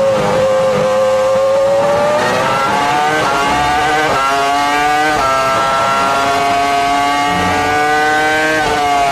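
Onboard sound of a Sauber Formula 1 car's Ferrari 3.0-litre V10 at high revs under full acceleration. The pitch climbs, then drops with quick upshifts about three, four and five seconds in, climbs slowly in a tall gear, and drops again with another upshift near the end.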